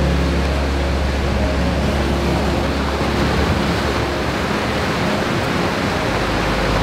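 Steady rushing sea surf over a low sustained musical drone that fades partway through.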